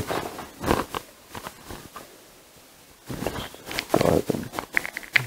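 Hands handling a bundled USB charging cable and its plastic tie on a tabletop: light clicks and rustles, sparse at first, then busier in the last two seconds.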